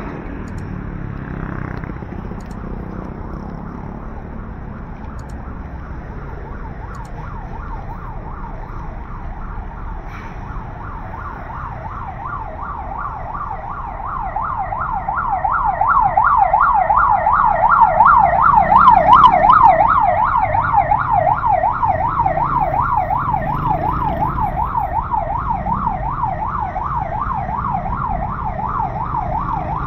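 Emergency vehicle siren in a rapid yelp, its pitch rising and falling several times a second. It comes in faintly, grows loud about two-thirds of the way through and fades again as the vehicle passes, over the steady rumble of street traffic.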